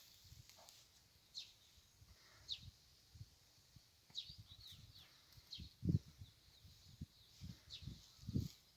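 Small birds chirping, short falling chirps every second or so. Low, brief thumps and rustles sound underneath, the loudest about six seconds in and another near the end.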